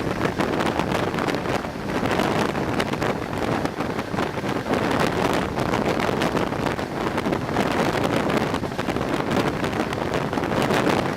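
Heavy wind buffeting the camera microphone aboard a moving passenger train, steady throughout, over the train's running noise.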